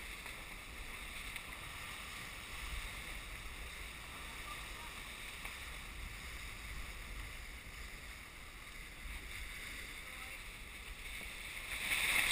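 Steady rush of wind and water around a Dufour 45e yacht under sail, with low wind buffeting on the microphone. A brief louder swell of the hiss comes near the end.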